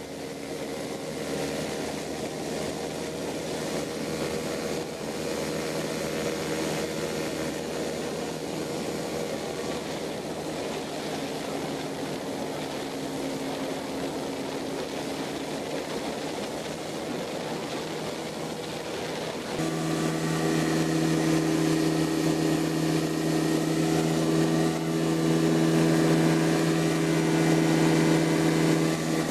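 Small engine driving a propeller in flight: a steady drone over rushing wind noise, which gets louder and changes tone about twenty seconds in.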